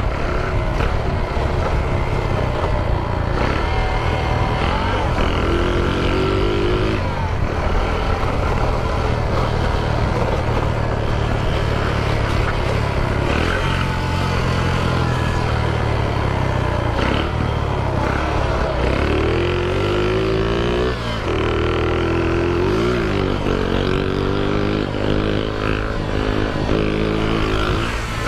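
Shineray 49cc moped engine being ridden and revved, its pitch climbing and falling several times, most clearly in the second half. This is an engine the rider says is knocking.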